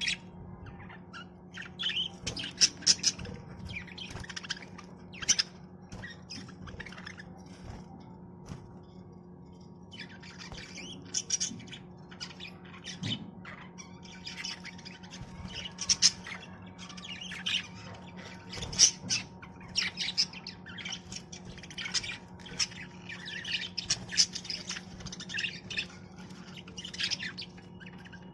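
Budgerigars chattering with quick chirps and squawks, quieter for a few seconds about a quarter of the way in, over a steady low hum.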